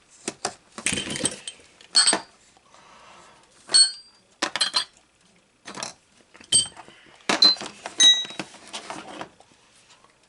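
Steel half-inch drive socket extensions being handled and clinking against each other: a dozen or so irregular sharp metallic clicks, several with a brief high ring.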